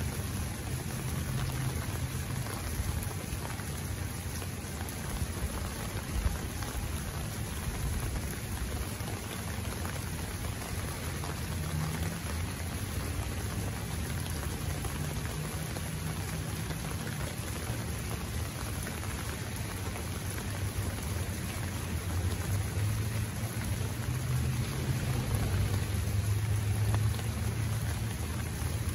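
Heavy rain falling and pattering on an umbrella over the microphone, with a steady low rumble underneath that grows louder near the end.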